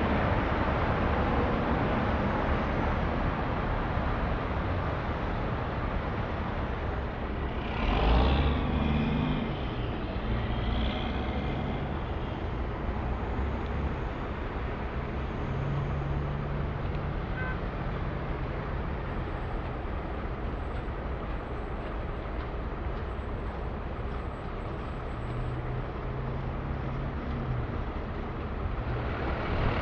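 Street traffic: a steady wash of passing vehicles with engine hums that rise and fade. A louder vehicle passes close about eight seconds in.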